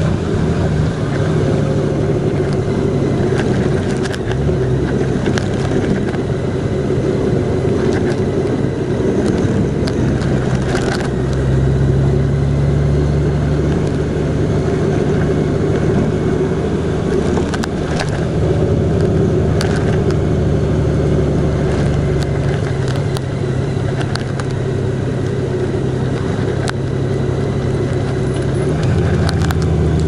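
Car being driven along a road: a steady low engine and tyre drone, with a few brief clicks now and then.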